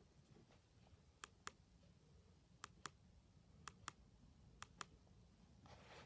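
Faint clicking of an Alcatel 10.10 mobile phone's keypad buttons being pressed, in four quick pairs of clicks spread over a few seconds.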